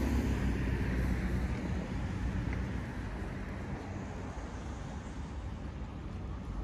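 Road traffic going past: a steady rumble of cars and tyres, a little louder in the first couple of seconds as a car passes close by, then easing off.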